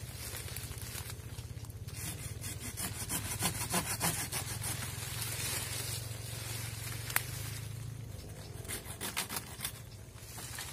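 Curved hand pruning saw cutting through coffee tree branches in quick back-and-forth strokes, in two bouts, with the rustle of leafy branches being pulled aside. There is a single sharp click about seven seconds in.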